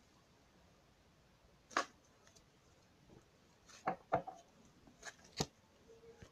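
Hands playing with slime: a few short, scattered clicks and taps, one about two seconds in and a cluster around four to five and a half seconds in.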